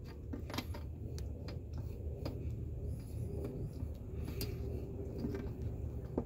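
Faint scattered creaks and clicks as a cut rubber hose is twisted and pulled off the plastic fitting on a power steering reservoir cap, over a low steady background hum.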